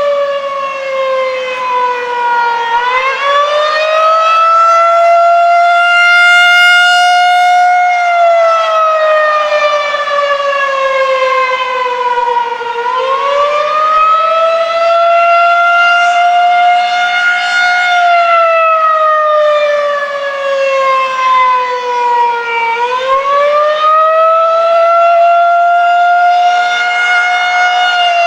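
Federal Signal 2001-SRN rotating outdoor warning siren sounding the Attack signal during its weekly test: a loud wail whose pitch climbs for about five seconds and falls for about five, over and over.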